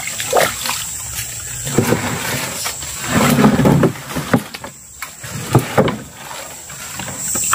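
Irregular water splashing as a large fish thrashes at the surface inside a netted fish trap, with several sharp splashes among the churning.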